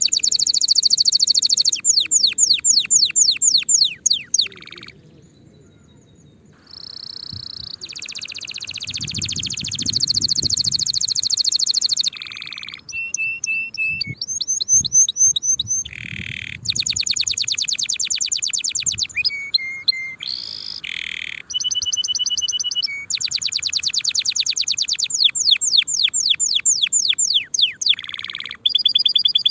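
Canary song: long rapid trills and runs of fast repeated notes, many sweeping quickly downward, with a pause of about two seconds a few seconds in.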